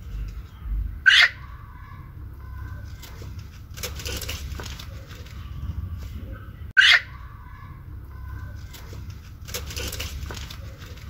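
A hen held in the hands lets out two short, loud squawks about six seconds apart. Between them come bouts of wing flapping and feather rustling.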